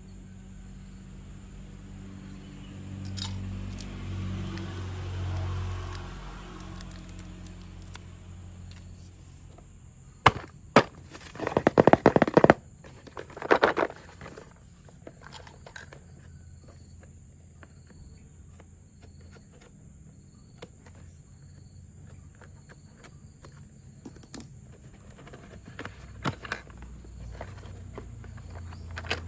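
Plastic toy train parts and packaging being handled: scattered clicks and knocks, with a rapid crackling rattle about ten seconds in that is the loudest part.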